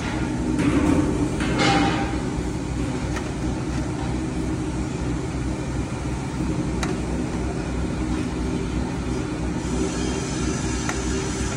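Ribbon blender powder mixer running steadily: its motor and drive drone while the ribbon agitator churns powder in the steel trough. A brief louder rush of noise comes about one to two seconds in.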